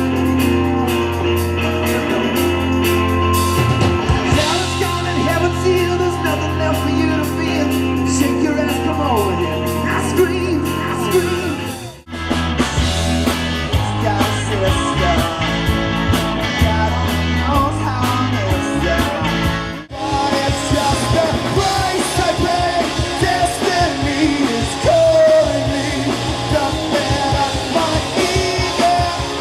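A rock band playing live, with a singer over the band. The sound drops out abruptly for a moment twice, about twelve and twenty seconds in.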